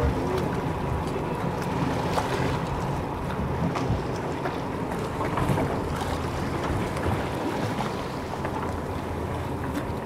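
Motor boat running steadily at the swimmer's pace, with wind buffeting the microphone and the wash of choppy sea.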